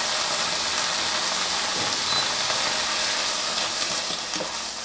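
Leafy greens sizzling steadily as they stir-fry in a nonstick wok, with a few light taps and scrapes of the spatula against the pan near the end.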